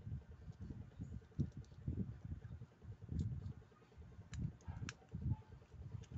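Small handling sounds of a screwdriver working a screw into the plastic part of a Daiwa World Spin 4000 spinning reel: soft, irregular knocks with a few sharp clicks about three seconds in and again near the fifth second.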